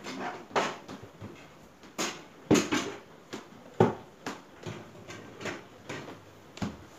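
Household cleaning noises: an irregular run of short, sharp knocks and clicks, roughly one every half second to a second, from handling a step ladder and cleaning gear.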